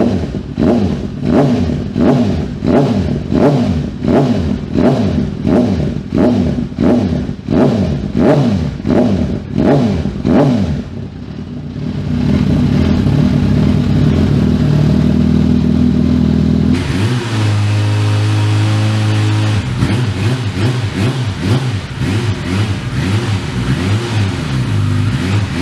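Suzuki Bandit 650's inline-four engine through an aftermarket exhaust, blipped over and over at about one and a half revs a second, then held at steady revs. After an abrupt change about 17 seconds in, it holds a steady note for a few seconds before the quick blips resume.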